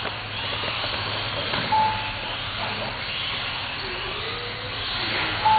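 1/18-scale electric radio-controlled cars racing on a carpet track: a steady high whine of motors and tyres that swells and fades as the cars pass. Two short beeps sound about four seconds apart.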